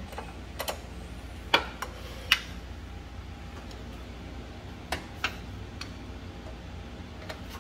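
Hand tools clicking and clinking on metal as the engine mount's bolts are fitted: a handful of separate sharp clicks, the two loudest about one and a half and two and a half seconds in, over a steady low hum.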